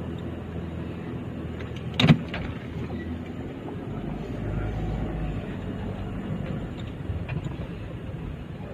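Car engine running in traffic, heard from inside the car, with one sharp knock about two seconds in and a deeper rumble rising around the middle.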